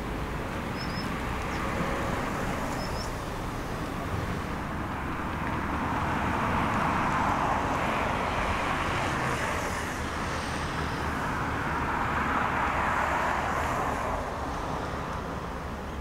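Steady hum of distant road traffic, swelling about six seconds in and again near the end as vehicles pass, with a low rumble underneath.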